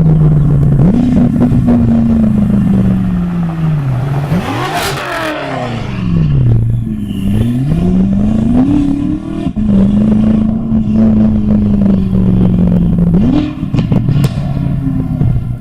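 Modified car engines and exhausts running past: a steady engine note that falls and rises again as a car goes by close, loudest about five seconds in, then holds steady before the revs step up near the end. Two sharp cracks are heard, one about five seconds in and one near the end.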